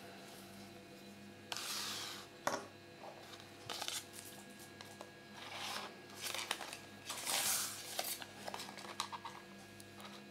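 Paper leaflet rustling and crinkling as it is unfolded and stood up, in several short bursts, with a few light clicks of small plastic toy pieces set down on a wooden table.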